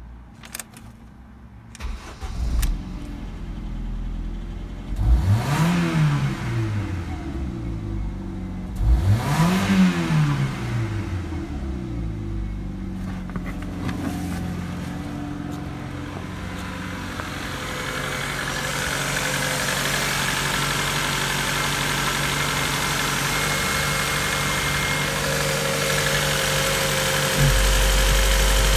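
Ford Focus 1.4-litre four-cylinder petrol engine (FXDD) starting, revved up and back down twice, then idling steadily. The idle grows louder and clearer toward the end, heard from the open engine bay.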